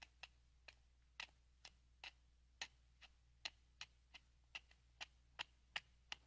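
A run of short, sharp taps or clicks, about two or three a second and slightly uneven in spacing.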